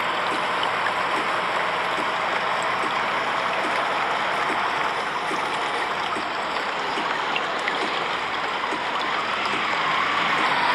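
Steady hiss of heavy rain, with a faint rising whine near the end as a vehicle approaches.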